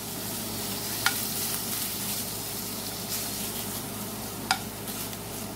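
Thin-sliced beef sizzling in hot butter in a skillet as it is pulled apart and stirred with a slotted spatula. Two sharp clicks, about a second in and again near the end.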